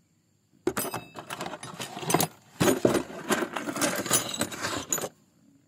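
Steel wrenches clinking and jangling against each other as they are handled: a dense, irregular run of metallic clinks that starts under a second in and stops about five seconds in.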